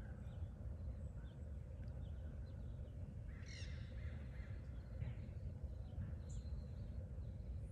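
A single short bird call about three and a half seconds in, over a steady low outdoor rumble, with faint scattered chirps.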